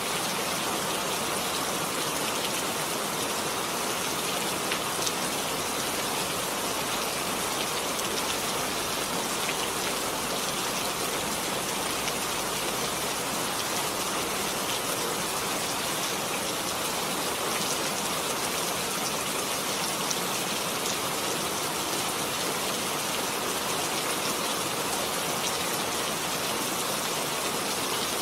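Heavy rain falling steadily, an even, unbroken hiss with scattered patter of drops.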